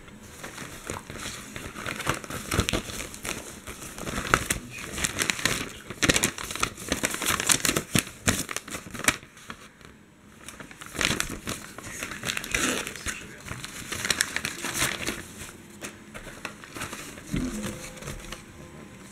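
Crinkling and rustling of packaging being handled and opened by hand: a white plastic bubble mailer, then a paper packing slip and a plastic-sealed retail pack. The crackling is dense and irregular, with a short lull about halfway through.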